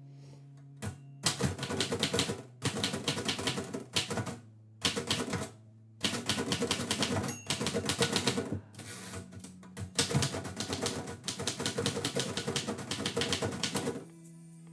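Typewriter keys striking in quick runs of typing, broken by short pauses, as a poem is typed onto a sheet.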